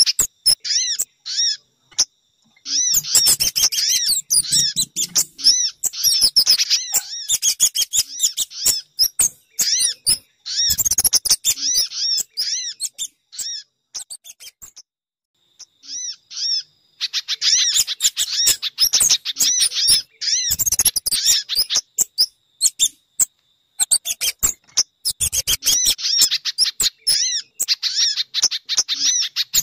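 Bird-lure recording of small songbird calls mixed from sogon, pijantung (spiderhunter) and kemade: rapid runs of high, sharp chirps that arch up and down in pitch. They come in dense bursts broken by short pauses, the longest about halfway through.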